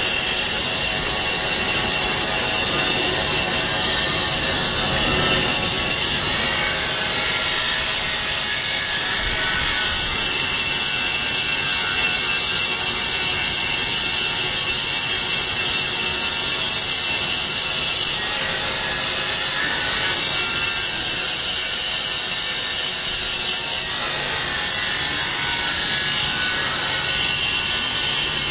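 Vertical band-knife foam cutting machine running steadily with a constant high hiss while a sheet of EVA foam is fed through its blade.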